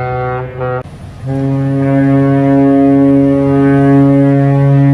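Valour-class frigate ship's horns. One steady horn blast cuts off under a second in, and after a short gap a second horn sounds one long, steady blast.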